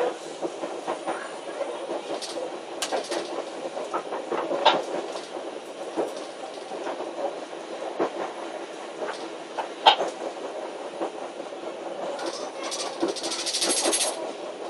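ADL class diesel multiple unit running along the track, heard from the driver's cab: a steady running noise with sharp knocks from the wheels every second or two, and a short hiss near the end.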